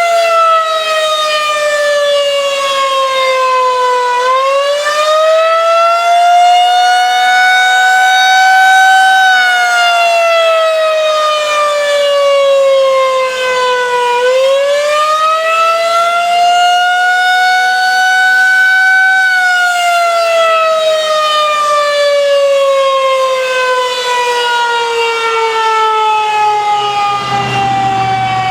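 Federal Signal 2001-130 outdoor warning siren sounding the Attack signal for a test: one loud tone that slowly rises and falls, each climb and drop taking several seconds. A low hum joins near the end.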